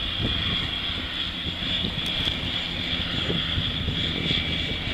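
Floatplane's propeller engines droning steadily as it flies low over the water on its landing approach.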